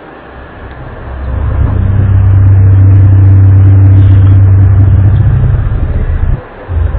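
A loud, low, steady droning hum of the kind reported as strange 'trumpet' sounds in the sky. It swells up about a second in, holds steady, cuts out briefly near the end and returns.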